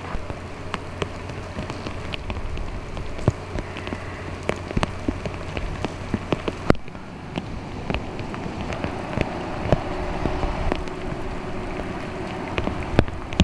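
Rain falling, with irregular drops tapping sharply close by.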